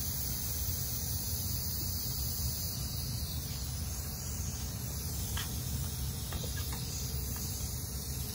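Steady hiss of compressed air bleeding out of an FX Wildcat MK3 PCP air rifle's reservoir through its loosened pressure gauge while the gun is being degassed. A few light clicks of metal parts being handled come a little past the middle.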